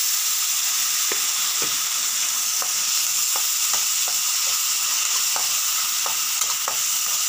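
Food sizzling steadily in a hot metal wok while a metal spatula stirs it, with irregular short scrapes and clinks of the spatula against the pan.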